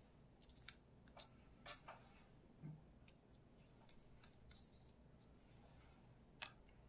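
Faint, scattered soft clicks and light paper crackles as small mung bean paste balls are picked up and set down on a paper-lined tray, about a dozen irregular ticks over faint room hiss.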